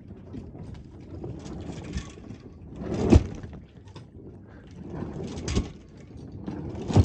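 Water sloshing and rushing along a sailing yacht's hull as the boat drifts slowly, rising to a louder surge about every two to two and a half seconds.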